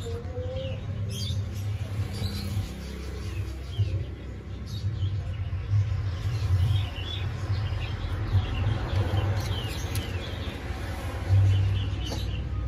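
A small caged mammal giving repeated short, high squeaks that fall in pitch, over a steady low rumble.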